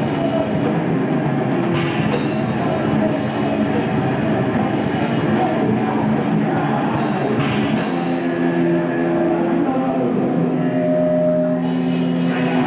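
Heavy metal band playing live: guitars and drum kit, dense and loud throughout, with held guitar notes in the second half.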